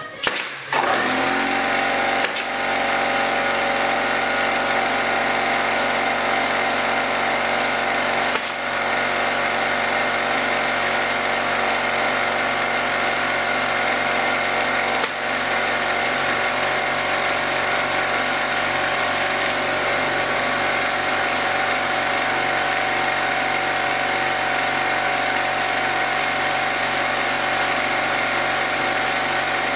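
Air compressor motor running steadily, starting up under a second in, with a few sharp clacks of a pneumatic brad nailer driving brad nails into wooden beehive frames.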